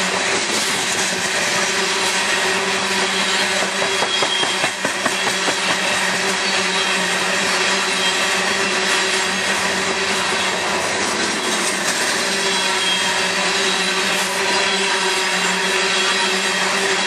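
Loaded coal hopper cars of a freight train rolling steadily past at close range: a continuous noise of steel wheels running on the rails.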